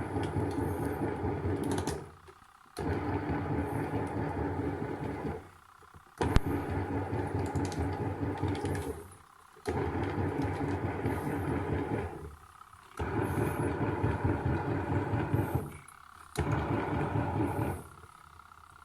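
Small SHINIL bucket-type washing machine running its wash action: the motor and agitator churn for two to three seconds, stop briefly and start again, about six times, as the pulsator alternates direction.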